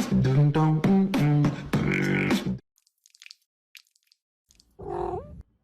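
Background music with a vocal, beatbox-like track that cuts off suddenly about two and a half seconds in. A couple of seconds of near silence with a few faint clicks follow, then a brief voice-like sound with a gliding pitch near the end.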